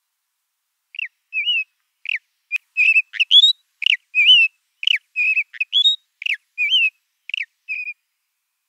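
Ant-eating chat calling: a quick string of short, clear whistled notes, some sliding down in pitch and some rising and falling, from about a second in until near the end.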